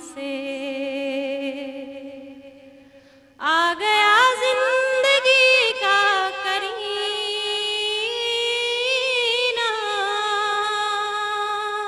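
Young woman singing an Urdu naat: a long held, wavering note fades away, then about three and a half seconds in a loud new phrase starts with quick ornamented turns and settles into long sustained notes.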